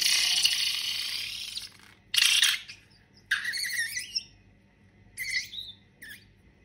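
Rubber balloon: a loud hiss of air or slime forced out for just under two seconds, then four short high squeaks with pitch sliding up and down, the last two fainter.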